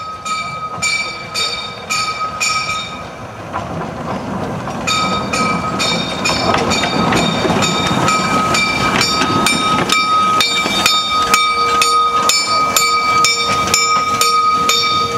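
Narrow-gauge steam locomotive on the move, its exhaust beating in an even rhythm with a steady high ringing tone over it. The beats come about two a second at first, then faster and louder after a brief lull about three seconds in.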